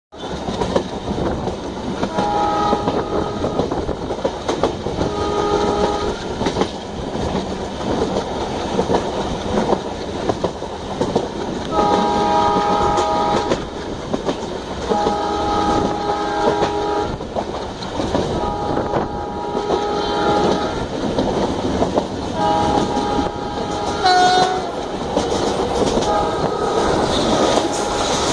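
Running noise of a train heard from a coach window: steady wheel-on-rail rumble and clatter, with a multi-tone locomotive horn sounding about seven times in blasts of one to two seconds. Near the end another train passes close by on the next track.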